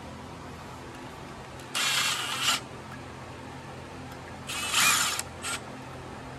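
Cordless power driver running in the bolts that hold a stator to an engine side cover: two short runs of under a second each, about 2 and 4.5 seconds in, and a brief blip just after the second.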